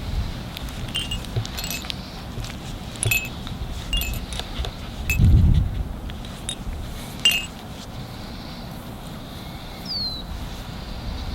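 Irregular light clinking and jingling, a dozen or so small bright strikes over several seconds, with a gust of wind on the microphone about five seconds in. Two short falling chirps come near the end.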